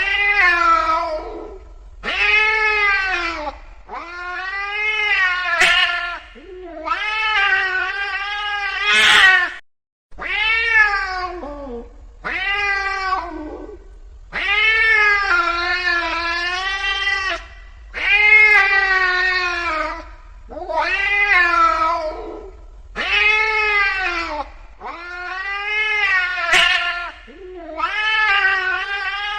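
Angry domestic cat yowling: a run of about a dozen long, drawn-out calls, each rising and then falling in pitch, repeating every two seconds or so.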